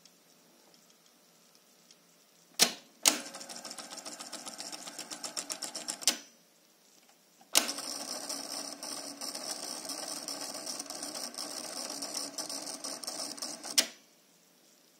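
Optonica RT-6 cassette deck's tape transport clicking into a winding mode and its reel drive, turned by a winding idler made from a syringe nose, whirring for about three seconds before it stops. A second sharp click starts the drive again, and it whirrs steadily for about six seconds until a final click stops it.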